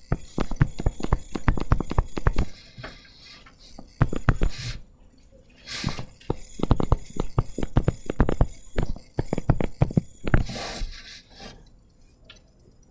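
Stylus tapping and scratching on a touchscreen while handwriting a formula: runs of quick sharp clicks with a scratchy hiss, broken by short pauses between strokes.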